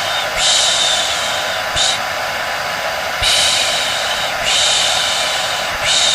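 Hair dryer running steadily under a human 'pşş pşş' shushing used to soothe a baby to sleep. There are about five shushes, most about a second long and one short.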